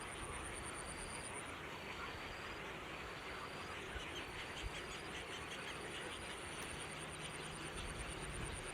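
Insects trilling: a steady, very high pulsed trill, with a lower, shorter trill repeating about once a second, over a faint outdoor background hiss.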